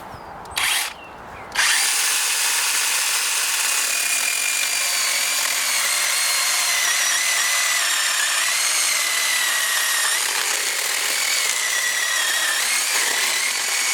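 Cordless battery chainsaw cutting wood: a brief blip of the trigger, then the saw runs steadily from about two seconds in. Its electric motor whine wavers and dips in pitch now and then as the chain takes the load.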